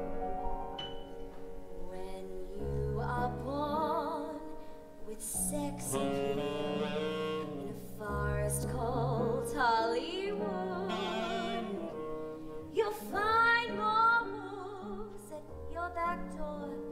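Live band playing a show tune's intro: a double bass line moving note to note under a melody line with wide vibrato.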